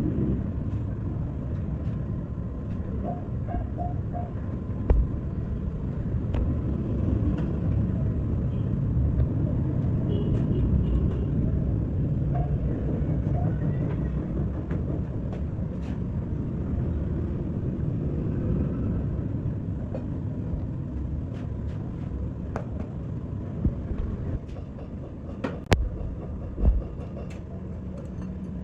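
Steady low rumble of a vehicle, with scattered light clicks and a few sharper knocks near the end.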